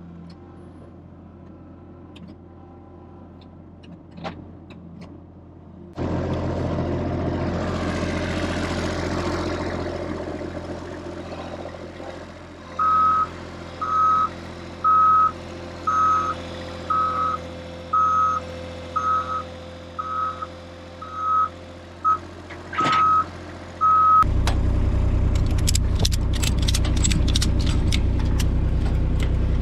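A vehicle's engine running steadily, then a reversing alarm beeping about once a second, some eleven times, as a vehicle backs up. Near the end a loud engine rumble close by, with a quick run of sharp clicks from a ratchet strap being cranked tight.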